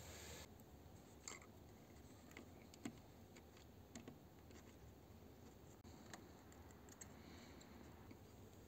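Near silence: room tone with a few faint, scattered clicks from handling the wires and solder while soldering wires onto the fuel pump module's terminals.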